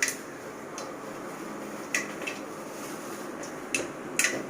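Whole spices (cumin, mustard seeds, bay leaf) frying in hot oil in a cooking pot with a steady sizzle, and a handful of short, sharp metallic clicks of a spoon against the pot.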